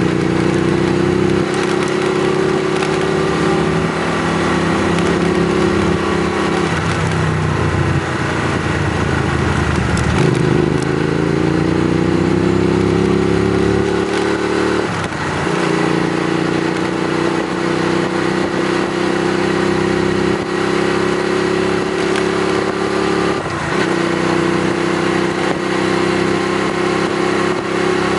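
Hyosung Aquila GV250 (Kasinski Mirage 250) 250cc V-twin motorcycle engine running through a new aftermarket exhaust while riding. The engine note mostly holds steady, dipping and picking up again around a third of the way in, with a couple of brief breaks in the note later on.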